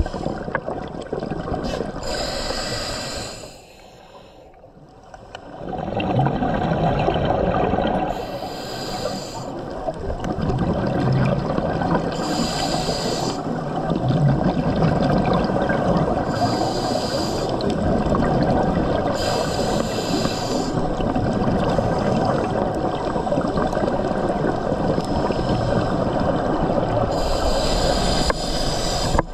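Scuba diver breathing through a regulator, heard through an underwater camera housing: a bubbling rush of exhaled air every few seconds over a steady underwater hiss.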